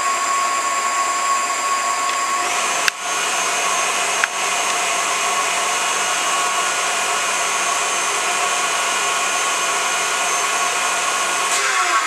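KitchenAid stand mixer running at medium speed, its whisk whipping a mascarpone cream filling in the steel bowl: a steady motor whine. Two brief clicks come about three and four seconds in, the whine dropping slightly in pitch at the first.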